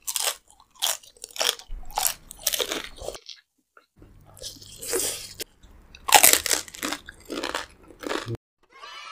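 Close-miked crunching bites into crisp roasted and fried meat, a rapid run of loud crunches with chewing between them. A short music intro starts near the end.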